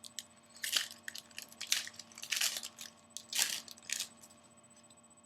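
Trading cards being slid and flipped through by hand, a string of short scraping rustles that stop about a second before the end.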